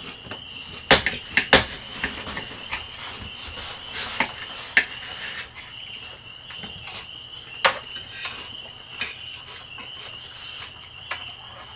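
Knives and forks clinking and scraping on dinner plates as steak is cut and eaten, in a run of sharp clicks, loudest about a second in. A steady high-pitched chirping trill runs behind, breaking off briefly about halfway.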